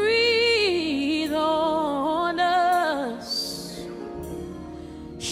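A woman sings a long, wordless gospel phrase that swoops and wavers in pitch, over softly held accompaniment chords. The voice fades after about three seconds, and a new phrase starts at the end.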